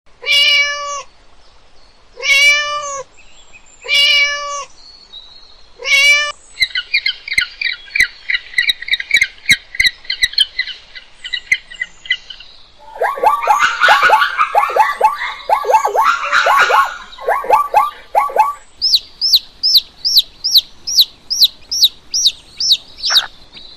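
A domestic cat meowing four times, then a fast run of high chirping notes. Then a penguin's loud, repeated falling calls, and last, baby chicks peeping in quick high falling cheeps, about three a second.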